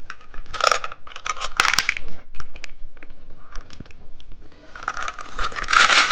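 Plastic candy wrapper crinkling and tearing as it is handled and opened, in rustling swells with small clicks, the loudest near the end.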